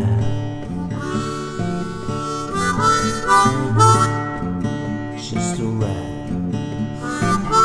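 Background music: an instrumental break in a song, a harmonica melody over acoustic guitar.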